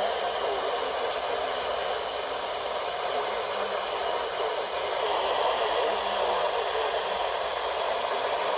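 Weather radio receiver hissing with static from a weak, poorly received station, with a faint broadcast voice barely showing through the noise.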